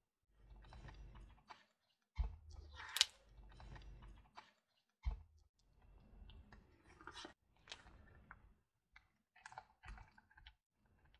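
Silicone spatula stirring sugar into a thick cream in a stainless steel bowl: soft sticky squelches and scraping against the metal, broken by a few sharper knocks on the bowl, the loudest about two and three seconds in.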